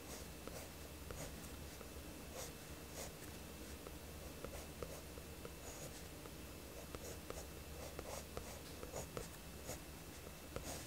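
Mechanical pencil drawing on sketchbook paper: faint, irregular scratching strokes as lines are drawn.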